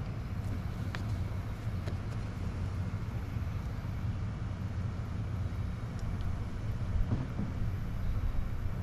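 Steady low rumble with a few faint clicks and knocks as a light mount is bolted down to a boat's cabin roof.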